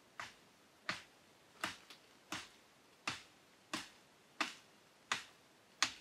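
A blade chopping into a tree branch: nine sharp, evenly spaced strokes, about three every two seconds.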